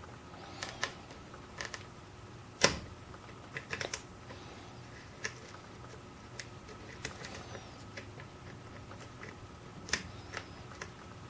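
Lock pick and tension wrench working the pins of a padlock, giving irregular small metallic clicks and ticks, with sharper ones about two and a half seconds in and near ten seconds. The picker is searching pin by pin for the binding pin after oversetting one.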